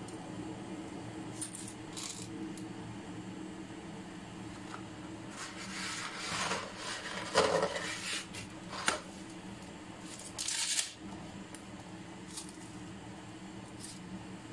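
Dry spaghetti being lowered into a stainless steel pot of boiling water. The sticks clink and rattle against the metal pot in a cluster of sharp taps, followed by a brief rush of noise, all over a steady low hum.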